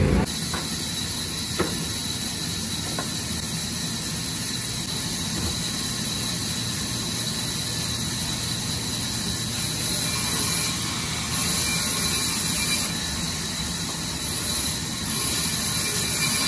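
A large vertical band saw running and cutting planks, a steady high hiss over a low motor hum. It grows louder a couple of times in the second half as wood goes through the blade.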